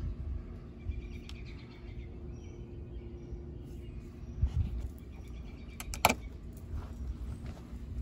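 Light clicks of handling inside a pool heat pump's electrical box, then a sharp click about six seconds in as the blown blade fuse is pulled from its holder; a faint steady hum underneath.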